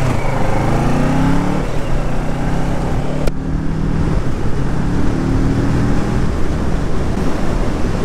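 Kawasaki Ninja 650's parallel-twin engine pulling under acceleration, its note climbing, holding, then climbing again a few seconds later. A single sharp click about three seconds in.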